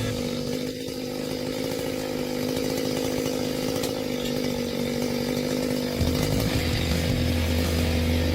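Chainsaw engine running steadily. About six seconds in, a deeper low drone joins and the sound grows a little louder.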